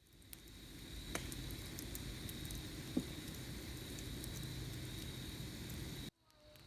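Campfire burning quietly, with a few faint crackles and one small pop over a steady low hiss. It cuts off abruptly near the end.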